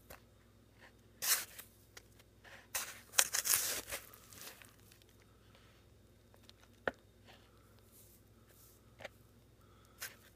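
Short bursts of rustling, scraping noise, the loudest about three seconds in, followed by a few isolated sharp clicks.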